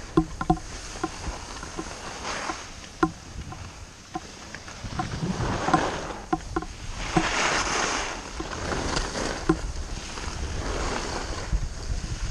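Skis sliding and scraping over groomed snow, the hiss swelling several times with the turns, with wind buffeting the microphone and scattered sharp clicks and knocks.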